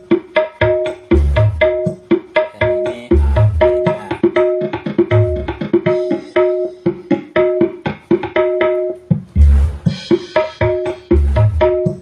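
Music with hand drums and deep bass beats played through a home-built 300-watt OCL stereo power amplifier and its loudspeakers, under a test listen. A quick, even rhythm of struck notes on two alternating pitches runs throughout, with deep bass thumps every couple of seconds.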